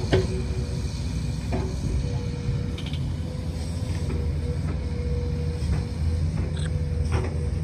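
Heavy diesel machinery running with a steady low rumble and a thin steady whine, and a few light clanks and creaks.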